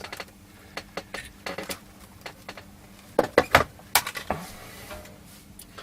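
Light metallic clicks and taps of test probes touching diode leads and solder joints during in-circuit diode checks, with a quicker, louder cluster about three seconds in, over a faint steady hum.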